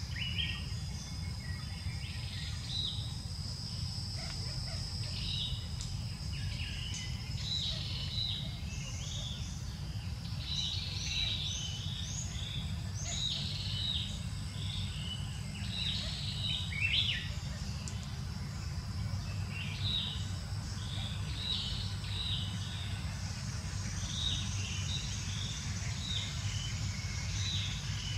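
Forest birds chirping and calling, many short notes scattered throughout, over a steady low rumble. A thin, steady high whine, such as an insect makes, runs under the calls for the first six seconds or so.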